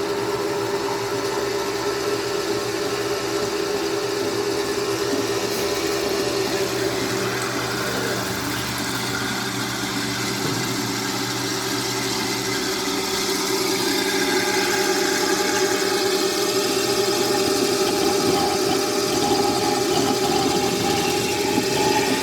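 Motor of a small 1.5 kg portable washing machine running with a steady hum, getting a little louder a bit over halfway through.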